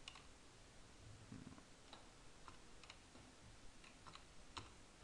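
Faint, scattered clicks of a computer keyboard and mouse as a number is typed into a field, about ten at irregular intervals over a low room hum.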